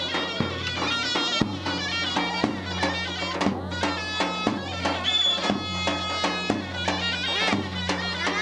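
Instrumental Turkish folk music: a melody over a steady low drone, with a regular beat about twice a second.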